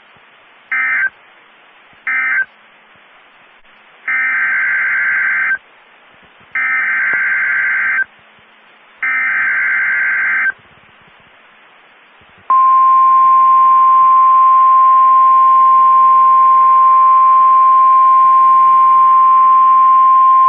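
NOAA Weather Radio alert signalling: two short end-of-message data bursts closing the watch message, then three longer buzzy SAME header data bursts announcing a new severe thunderstorm warning, then the steady 1050 Hz warning alarm tone held for about nine seconds.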